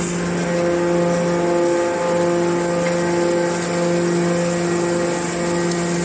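Hydraulic metal scrap baler's pump unit running: a steady hum with a brief dip about two seconds in.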